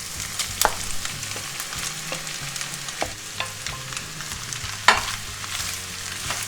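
Sliced onions sizzling in hot coconut oil in a pan as they are stirred, with a few sharp clicks of a utensil against the pan, the loudest about five seconds in.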